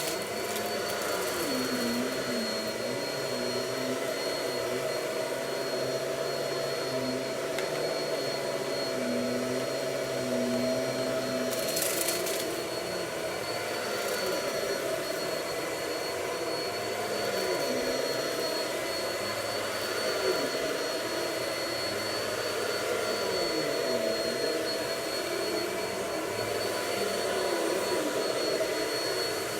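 Vacuum cleaner running steadily, with a constant high whine over a lower hum that wavers in pitch. There is a brief hiss about twelve seconds in.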